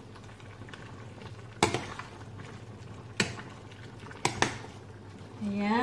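A metal spoon stirring vegetables in a stainless steel saucepan, knocking sharply against the pan four times: once about a second and a half in, once at about three seconds, and twice in quick succession past four seconds.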